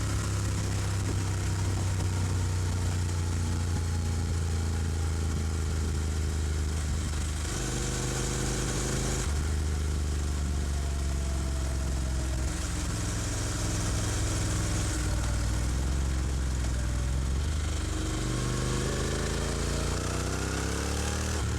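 Honda NC750X's parallel-twin engine running under way, its pitch changing in steps and rising near the end.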